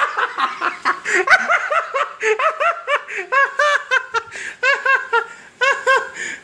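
High-pitched laughter in several bursts of quick, short "ha" syllables with brief pauses between them.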